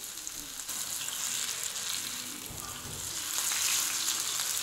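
Hot vegetable oil sizzling steadily in a frying pan as grated-potato-coated meat cutlets fry, growing a little louder in the second half.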